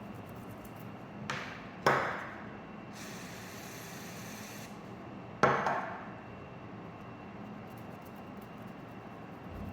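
Contact cleaner sprayed from an aerosol can in one short hiss of under two seconds, for cleaning corrosion out of a USB Type-C connector. Two sharp knocks, before and after the spray, are the loudest sounds.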